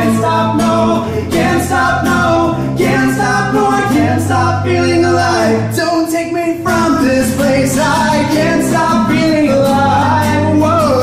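Acoustic guitar strummed with two men singing along.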